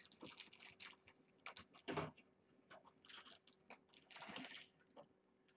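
Faint, irregular crunching and clicking of a kitten chewing dry kibble.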